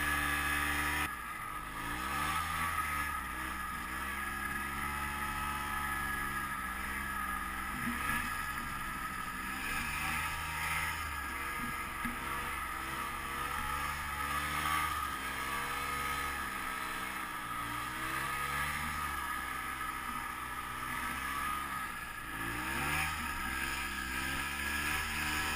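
Modified 2006 Ski-Doo Tundra snowmobile engine running under load through deep powder, its pitch rising and falling with the throttle. It drops back about a second in and picks up again near the end.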